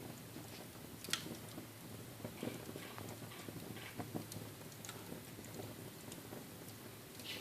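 Small wood fire crackling in a fireplace: irregular pops and snaps over a low hiss, with a sharper snap about a second in and another near the end.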